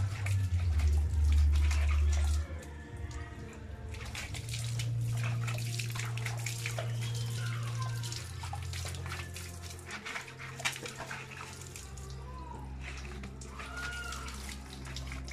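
Water splashing and dripping as a wet dog is rinsed by hand from a basin, water pouring off its coat onto a concrete floor, over a low hum.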